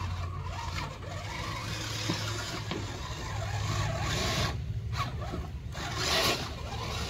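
Electric RC rock crawler driving over wet creek stones: the motor and gears run with a steady whir while the tyres rub and scrape on the rocks.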